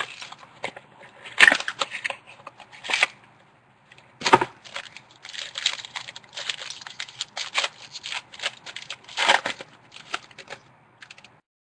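Trading card packaging being torn open and crinkled by hand, in irregular bursts of crackling and rustling.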